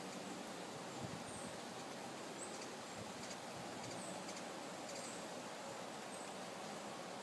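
Steady rain falling on the trees, with short, high, thin chirps from a small bird about once a second.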